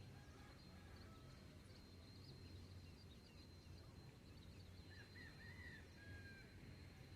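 Faint dawn ambience: distant birds give scattered short chirps, with a small cluster of clearer calls about five seconds in. Under them run a steady thin high tone and a low hum.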